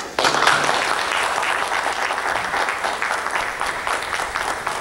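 An audience applauding: many hands clapping together, breaking out suddenly and keeping on steadily.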